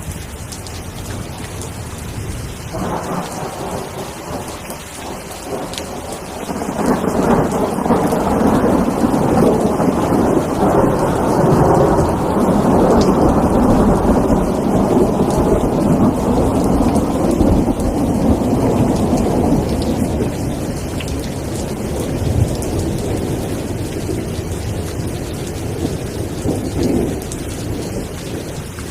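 Steady rain with rolling thunder: a long rumble builds about seven seconds in and fades away over some fifteen seconds, with shorter rumbles before and near the end.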